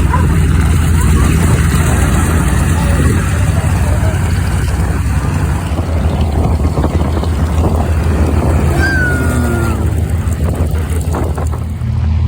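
Piston aircraft engine of a warbird running steadily at low speed, with voices mixed in and a short chirp about nine seconds in.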